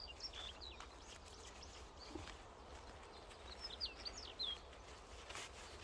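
Faint chirps of small birds: short, high calls sliding in pitch, in a cluster at the start and another around the middle, over a quiet outdoor background. A soft rustle near the end.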